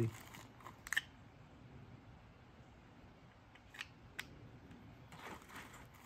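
Quiet handling of small fire-kit items (plastic bags of tinder, a ferro rod on a ring): a few small sharp clicks, one about a second in and two close together around four seconds in, with a faint rustle near the end.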